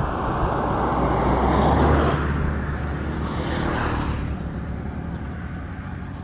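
A car passing the other way: its engine and tyre noise swell to the loudest point about two seconds in, then fall in pitch and fade away. Under it runs a steady low rumble of wind on the microphone.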